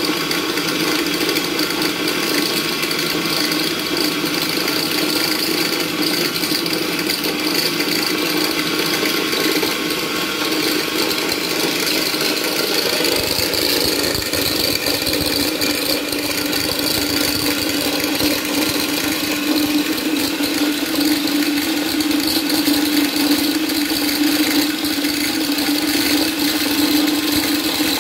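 Portable electric dry mill grinder running steadily while grinding rice to fine flour. Its motor and grinding plates give a continuous whir with a rattling grind, which grows deeper from about halfway through.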